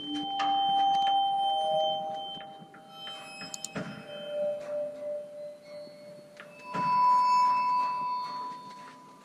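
Ambient electronic background music: long, held pure tones like a singing bowl or sine wave, with a new note coming in about every three seconds.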